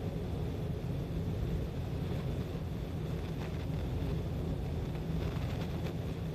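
Steady road and engine noise from a car cruising on an expressway, heard from inside the cabin as a continuous low rumble.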